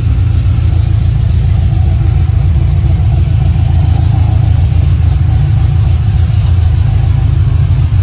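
Supercharged 6.2-litre LSA V8 in a 1971 Chevelle idling steadily with a loud, deep rumble.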